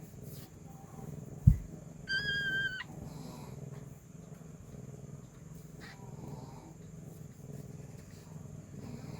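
Mother cat purring steadily in a low, even rumble. About one and a half seconds in there is a single sharp thump, and just after it a short, steady high-pitched tone lasting under a second.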